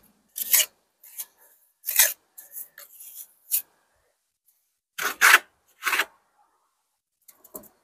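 Steel trowel scraping and pressing mortar into a joint in old brickwork. It comes as a series of short scrapes with quiet gaps between, the loudest about two seconds in and again around five to six seconds in.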